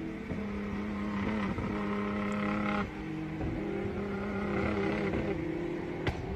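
Car engine running under load, its note holding steady and then shifting to a new pitch a couple of times, with a single sharp crack near the end.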